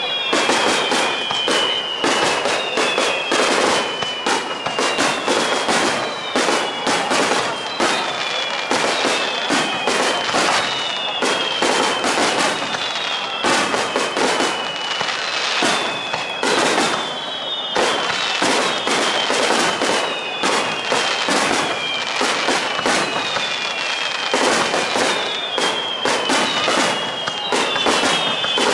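Aerial fireworks display: a dense, unbroken run of shells bursting with bangs and crackles, overlaid by repeated high whistles that each glide down in pitch.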